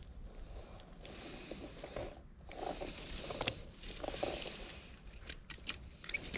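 Faint rustling and scattered small clicks of a caught rainbow trout being handled while the hook is worked out of its mouth.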